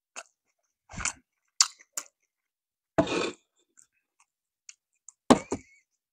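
Close-miked eating sounds: short scattered lip smacks and chewing clicks separated by silence, a longer noisy rush about three seconds in, and two sharp smacks near the end.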